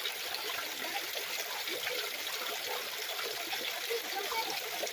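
Small woodland waterfall trickling and splashing steadily over rocks.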